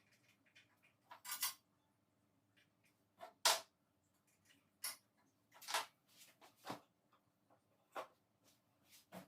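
Scattered clicks and knocks, about eight spread irregularly, from hand work on a Ryu 8-inch bandsaw during a blade change; the saw is not running.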